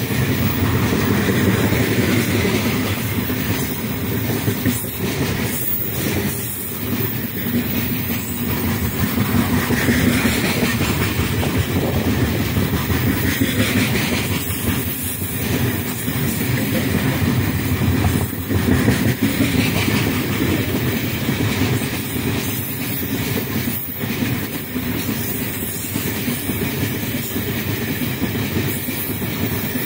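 A freight train's open wagons rolling past close by: a steady rumble of steel wheels on the rails with irregular clicks as the wheels cross track joints.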